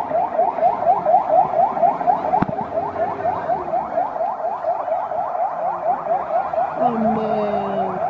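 Car alarm siren sounding a fast rising electronic sweep over and over, about five times a second. A single sharp crack comes about two and a half seconds in, and a brief lower held tone sounds near the end.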